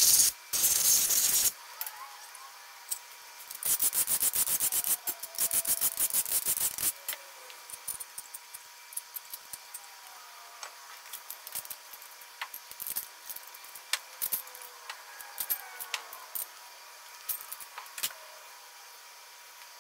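Bare LS engine block being turned over on a steel engine stand: metal rattling near the start and a run of rapid clicking a few seconds in, then scattered light metal clinks and taps of parts and tools being handled.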